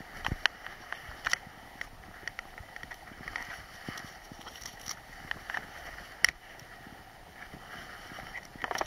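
Skis scraping and hissing over hard-packed, bumpy piste snow during a downhill run, with scattered sharp clicks and knocks, several of them close together near the end.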